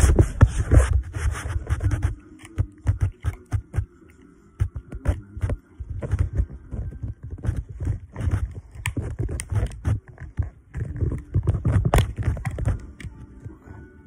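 Rustling, then scattered clicks and scrapes from handling close to the phone's microphone, as the Lil Nitro chip's packaging is opened. The rustling is densest in the first couple of seconds.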